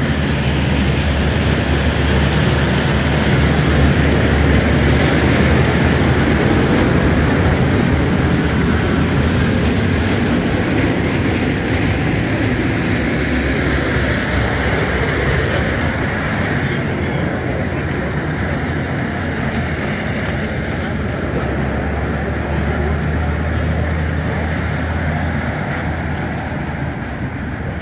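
A steady engine drone, a low hum under a wide hiss, running without a break and thinning a little in its upper part about two-thirds of the way through.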